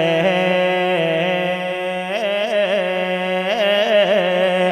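A male naat reciter singing a long held note without words, unaccompanied, with quick wavering turns in pitch in the second half.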